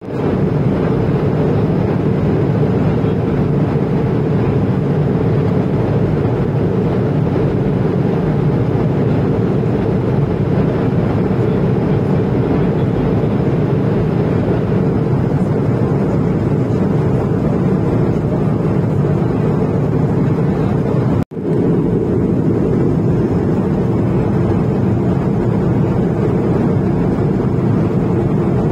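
Steady cabin noise of an Airbus A220-300 in cruise: the low, even rush of airflow and its geared turbofan engines, heard from a passenger seat. It cuts out for an instant about two-thirds of the way through.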